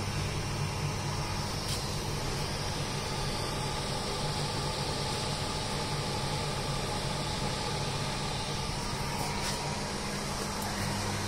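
Electric convection bakery oven running: a steady low hum from its fan motor over an even hiss.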